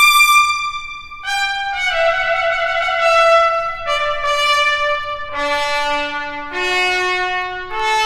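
Trumpet playing slow, long held notes one at a time. The line steps downward, drops to a low note about five seconds in, then climbs back up over the last three notes.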